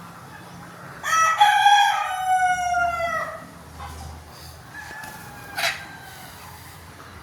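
Rooster crowing once, a drawn-out call of about two seconds that drops in pitch at the end. A short, sharp chicken call follows about five and a half seconds in.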